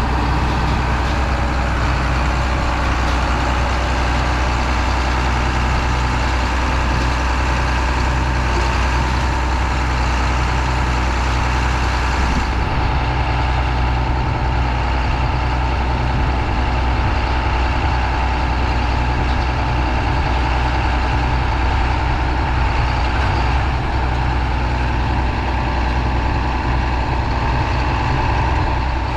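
Heavy diesel engine of cotton-harvesting machinery running steadily at a constant speed.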